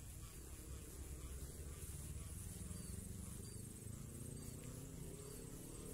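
Insects in the marsh grass chirping in a steady, high-pitched pulsing trill, over a low rumble.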